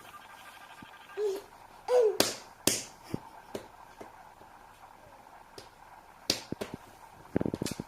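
A few sharp slaps and smacks of a child's hands on the floor, ending in a quick run of pats near the end, with two short vocal squeaks early on.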